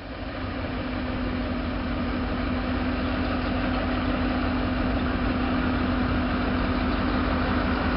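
EMD GP7 diesel-electric locomotive's 16-cylinder two-stroke engine running at low throttle as it rolls slowly up. It is a steady rumble with a steady hum, growing louder over the first couple of seconds and then holding.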